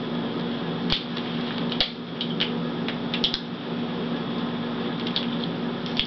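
Small plastic clicks and taps, about ten scattered ones, as the video cable connector is handled and refastened onto a replacement laptop LCD screen, over a steady low hum.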